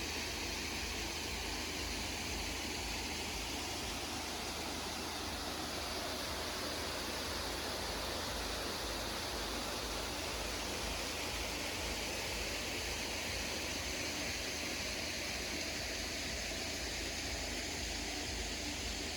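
Hotnitsa waterfall: a steady, unbroken rush of falling water.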